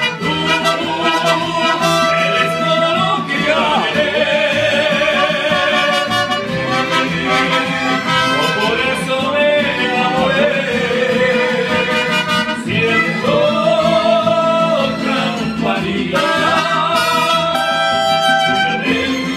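Live mariachi band playing an instrumental interlude, with violins and trumpets carrying a melody of held, sliding notes over strummed guitars.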